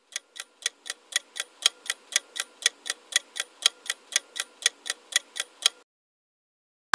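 Countdown-timer sound effect of a clock ticking, about four sharp ticks a second; it stops about six seconds in, marking that the time to answer is up.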